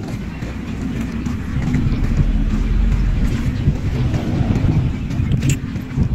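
Wind buffeting a phone's microphone: a loud, uneven low rumble that grows stronger about two seconds in, with a brief tick near the end.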